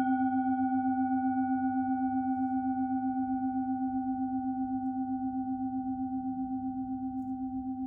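Singing bowl ringing after a single strike: one low hum with several higher overtones, wavering in a steady pulse of about five beats a second and slowly fading.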